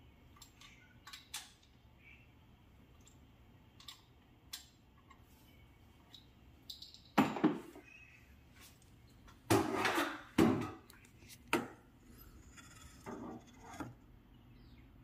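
Irregular clinks and knocks of hard objects being handled, with a few louder clattering knocks in the middle.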